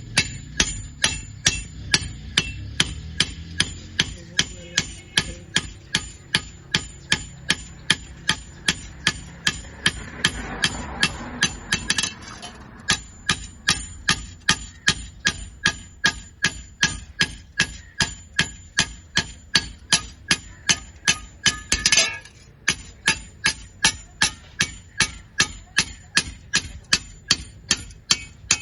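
Hammer striking an iron piece in a steady rhythm of about three blows a second, each blow ringing metallically. Twice there is a short rush of noise between the blows.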